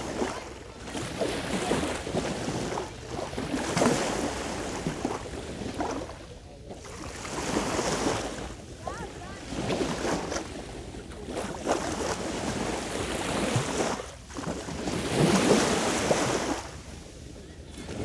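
Small sea waves washing onto the shore and drawing back in repeated surges every few seconds, with wind buffeting the microphone.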